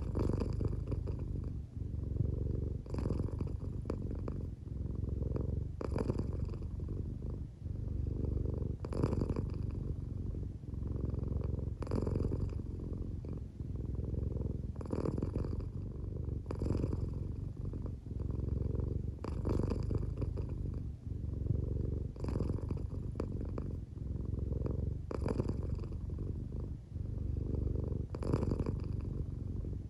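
American Shorthair cat purring steadily while half asleep, a low continuous rumble that changes with each breath about every three seconds. The owner thinks it may be partly snoring.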